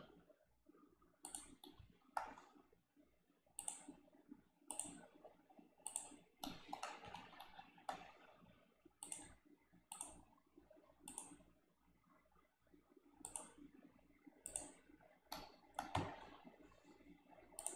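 Faint computer mouse clicks at irregular intervals, roughly one a second with a short pause partway through: the clicks of placing successive wall points while drawing in CAD software.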